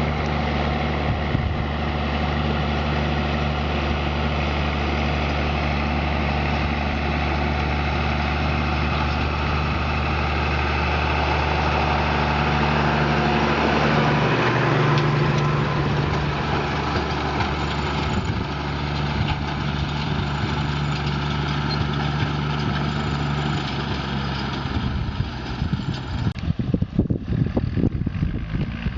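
Diesel engine of heavy farm machinery running steadily at constant speed. Near the end the sound changes abruptly to a rougher, uneven engine sound with irregular knocks.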